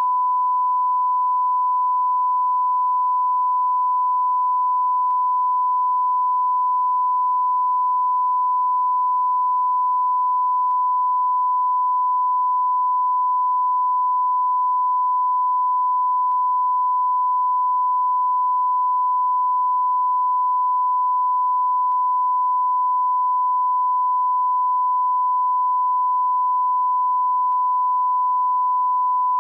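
Electronic beep sound effect: a single pure, steady tone held at one pitch without a break.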